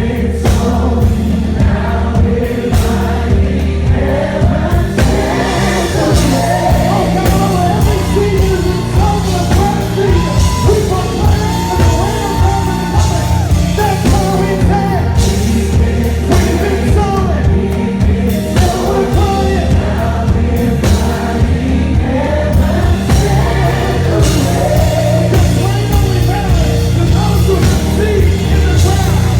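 Live gospel worship music: a band holding sustained bass and keyboard chords under singing voices, at a steady, loud level.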